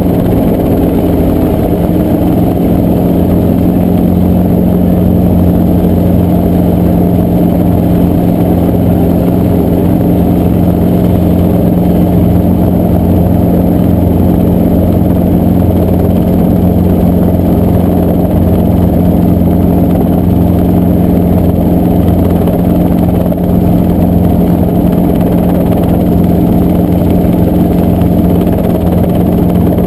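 Robinson R22 helicopter's piston engine and main rotor running steadily at flying speed, a loud, even hum with a strong low tone, heard from inside the small bubble cabin.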